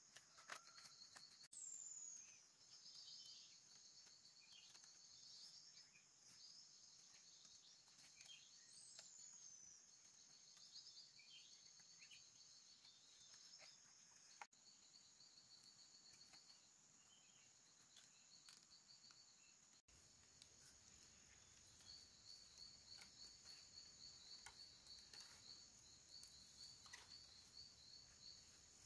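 Faint outdoor ambience: insects trilling steadily in high pulsing runs, with scattered bird chirps and two downward-sliding bird whistles near the start.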